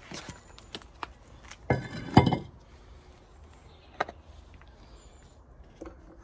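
A worn cast-iron brake disc set down on paving, clanking twice with a metallic ring about two seconds in. Lighter handling clicks and knocks come before and after.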